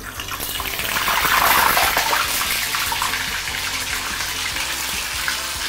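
A block of pressed tofu going into hot oil for deep frying, sizzling at once. The sizzle swells over the first second or two, then settles into a steady bubbling fry as the water in the tofu boils off into the oil.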